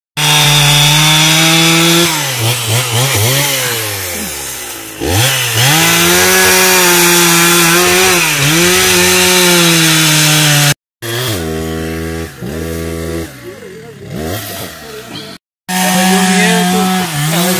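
Two-stroke chainsaw cutting into the base of a large tree trunk, running at high revs; its pitch dips and recovers several times as it bogs in the wood. After an abrupt cut it runs quieter, its pitch falling, then comes back loud after another cut.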